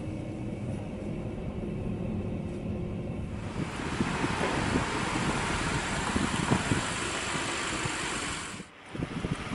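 Bentley Continental GTC's twin-turbo V8 at low speed: a steady low drone heard inside the cabin, then from about three and a half seconds in the car heard from outside, rolling slowly over cobblestones with tyre rumble under the engine. The sound drops away briefly just before the end.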